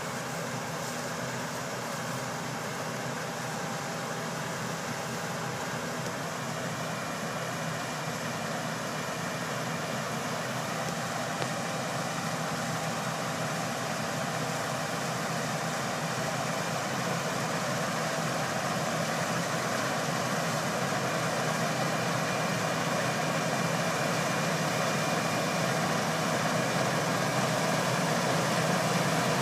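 Combine harvester's diesel engine and threshing machinery running steadily while harvesting barley, growing gradually louder as the machine comes closer.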